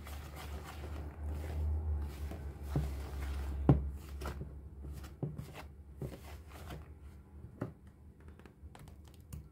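Wire whisk stirring dry flour in a plastic mixing bowl: soft scraping and rustling with frequent light ticks of the wires against the bowl, and one sharper knock a little under four seconds in. A low rumble runs under the first few seconds.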